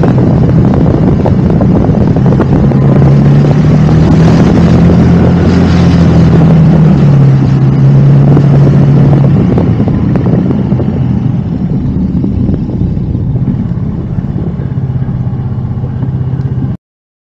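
A vehicle engine running with wind noise on the microphone. Its pitch steps down slightly about seven seconds in, then it fades, and the sound cuts off abruptly near the end.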